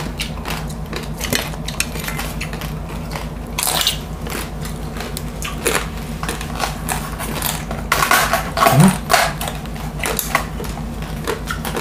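Crisp lechon skin crackling and crunching as it is cut with a large knife and chewed: irregular sharp crackles throughout, densest in a loud cluster about eight seconds in.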